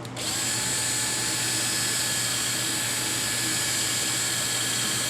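Power drill running at steady speed for about five seconds, spinning a toy-train wheel set on its axle while a Scotch-Brite pad is held lightly against the wheel to clean it.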